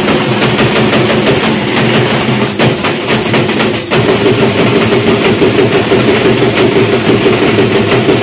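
Dhol drums played in a fast, continuous rhythm, loud and dense, with a steady held drone underneath that steps up in pitch about four seconds in.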